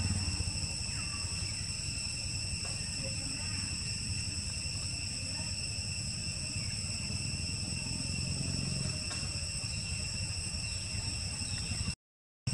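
Steady high-pitched insect drone: several thin whining tones held without a break over a low rumble. The sound cuts out for a moment near the end.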